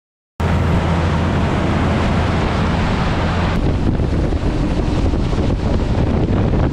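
Wind buffeting the microphone over the steady hum of a boat's engine running under way; the sound cuts in abruptly just after the start, and the hiss eases a little about three and a half seconds in.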